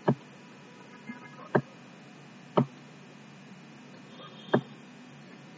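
Four sharp single clicks, about a second apart, over a faint steady hum. These are the clicks of a computer input device as handwriting strokes are drawn on a digital whiteboard.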